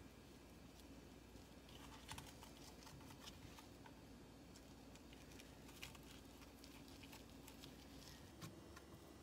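Faint scattered taps and soft clicks from hands rolling thin-sliced pork belly around chives and mushrooms on a wooden cutting board, over a low steady hum.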